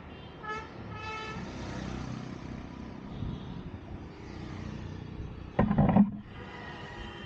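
Street traffic heard from a moving vehicle, with two short horn toots in the first second and a half. A louder, lower blast about half a second long comes near the end.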